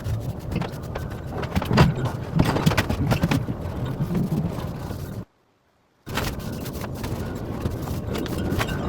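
Stain being worked onto a chair's wooden legs by hand: rubbing and scuffing with scattered clicks and knocks of handling. The sound drops out to silence for under a second about five seconds in.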